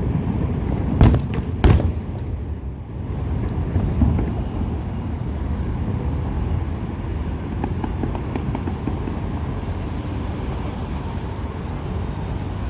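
Two fireworks shells bursting, about a second in and less than a second apart, followed by a steady low rumble of outdoor background noise.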